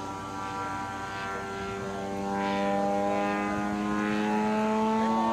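Radio-controlled model airplane flying overhead, its motor and propeller making a steady droning tone. From about two seconds in the pitch and loudness climb slowly.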